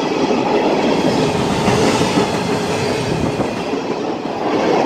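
Empty coal hopper cars of a long freight train passing close by at high speed: a steady, dense rush of wheel-on-rail noise with clatter and a faint wavering squeal.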